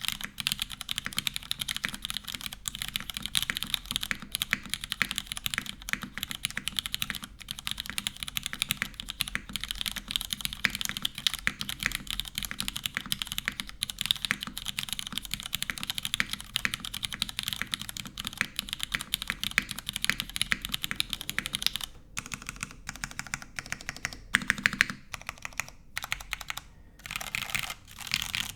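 Mechanical keyboard with stock Cherry MX2A Orange switches in a full aluminum plate with no foam, typed on quickly and continuously. About 22 s in, the typing thins out into shorter runs of keystrokes with brief pauses.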